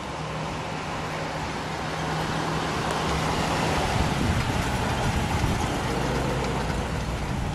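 1961 Chrysler New Yorker's 413 cubic-inch "Golden Lion" V8 running as the car drives up and past. The sound grows steadily louder toward the middle as the car nears.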